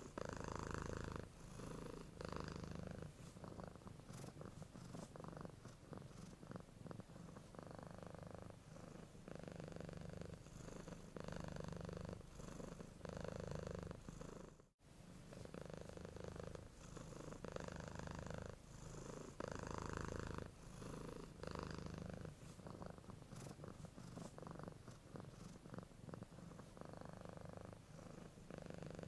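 Domestic cat purring, swelling and easing with each breath in and out every second or two. There is a brief gap about halfway through.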